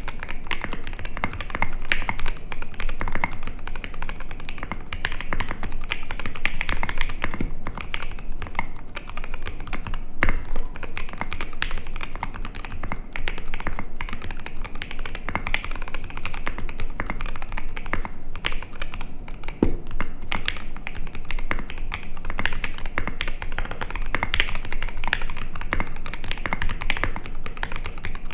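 Steady, fast typing on a MODE Eighty mechanical keyboard with lubed Durock EV-01 linear switches in an aluminium plate and KAT-profile keycaps: a continuous stream of keystrokes. The sound is a bit muted, with some clack and no hollowness.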